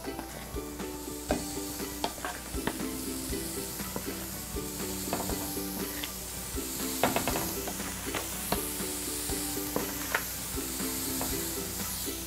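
Ground-lamb slider patties sizzling steadily on a griddle on high heat, with a few sharp clicks and crackles, over soft background music with a repeating melody.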